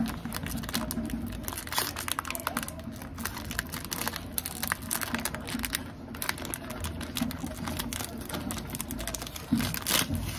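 Plastic wrapper of a tube of malai kulfi ice cream crinkling in quick, irregular clicks as the packet is squeezed and kneaded between the fingers. A steady low hum runs underneath.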